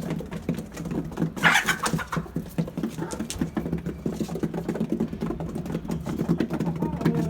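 Chickens pecking and scratching: rapid light tapping over a steady low hum, with a short squawk about a second and a half in.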